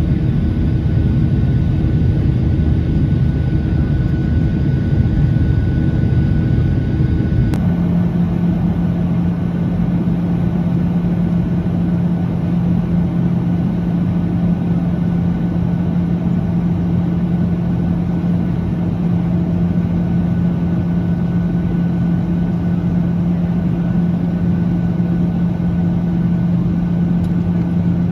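Airliner cabin noise heard from a window seat: a steady, loud engine and airflow rumble. About seven and a half seconds in it changes abruptly to a steadier hum with a strong low tone.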